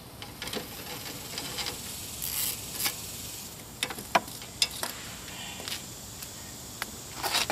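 Scattered metal clicks and short scrapes from a socket wrench and a nut being worked off the studs of an AC line fitting on the condenser.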